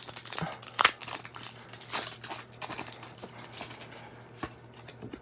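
Foil wrapper of a Pokémon card booster pack crinkling and tearing as it is opened by hand, in a run of irregular rustles and small clicks.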